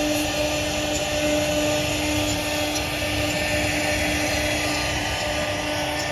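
CNC router spindle running steadily while carving wood, a constant whine over a dense cutting hiss.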